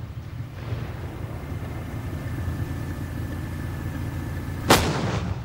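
Challenger tank's 120 mm main gun firing once near the end, a single sharp, loud blast that dies away over about half a second, over a low steady rumble.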